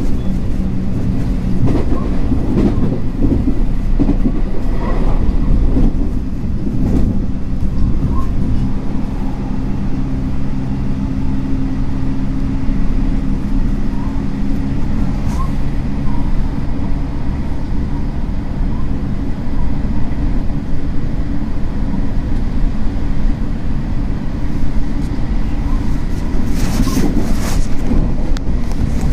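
JR West 225 series electric train running at speed, heard from inside the car: a continuous rumble of wheels on rail with a low steady hum through the middle stretch, and a few sharp clacks near the end.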